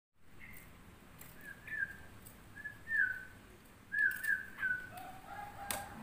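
Person whistling at caged birds: about five short clear notes, each sliding slightly downward at much the same pitch. A lower note follows near the end, then a sharp click.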